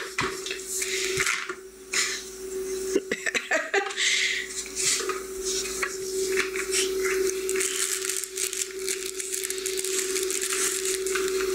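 A plastic baby activity toy clattering and rattling on a wooden floor as it is pushed and handled, in many short clicks and knocks, with a steady tone underneath.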